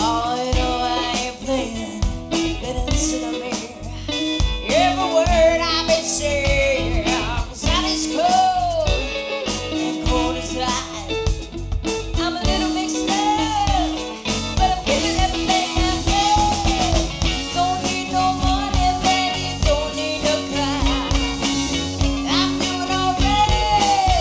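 Live band playing a song: a woman sings lead over electric guitar, bass guitar and drum kit.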